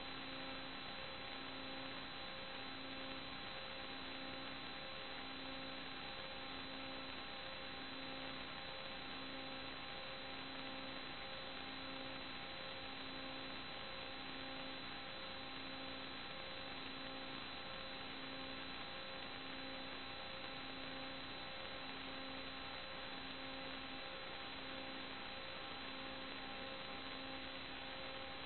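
Steady electrical hum and hiss from the inspection camera system's audio line, with a low tone pulsing on and off about once a second.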